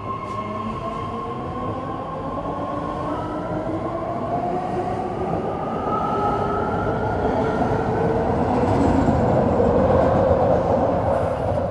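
BART Fleet of the Future electric train pulling out of the station and gathering speed. Its motors whine in several rising tones over wheel and rail rumble that grows steadily louder.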